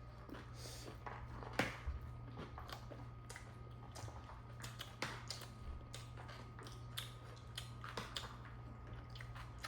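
Panipuri being eaten close to the microphone: irregular crunches, clicks and wet chewing sounds over a low steady hum.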